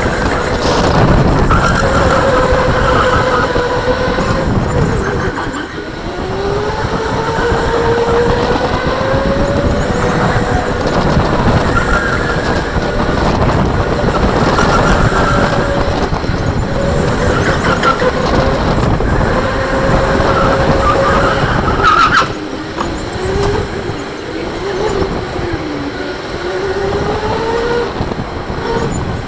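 Electric go-kart motor whining, its pitch rising and falling as the kart speeds up and slows through the corners, over a steady rumble of the kart rolling on the concrete track. A sharp knock about three-quarters of the way through.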